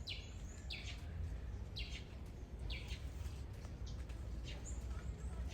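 A bird chirping: short, sharp, falling calls repeated about once a second, over a steady low rumble.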